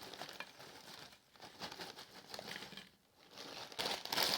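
Packaging crinkling and rustling as it is handled, with many small crackles, briefly quieter twice and louder near the end.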